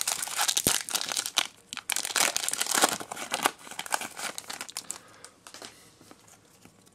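Foil Pokémon booster pack wrapper being torn open and crinkling in the hands as the cards are pulled out. The crackling is dense for about the first three and a half seconds, then thins to a few soft rustles.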